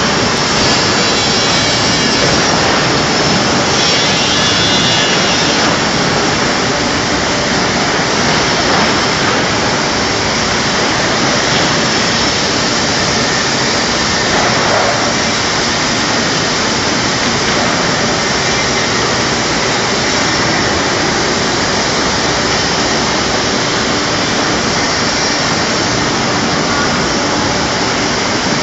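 Thin-board cutting machine running, a loud, steady rushing noise that does not change.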